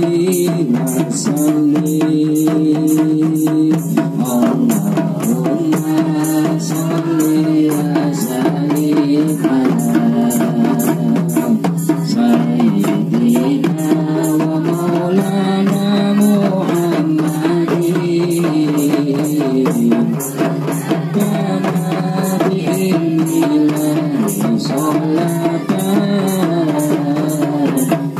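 Women singing shalawat, Islamic devotional songs, together, accompanied by rebana frame drums struck by hand in a steady rhythm.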